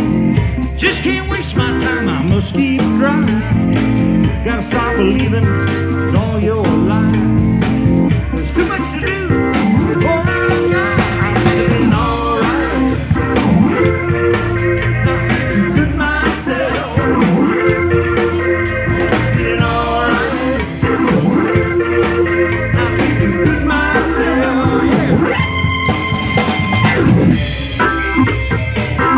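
Live blues-rock band playing: an organ sounding through a Leslie rotating-speaker cabinet, electric guitar and a drum kit keeping a steady beat.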